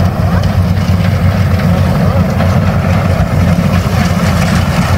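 Farm tractor engine idling steadily beside the grain trailer, a constant low hum.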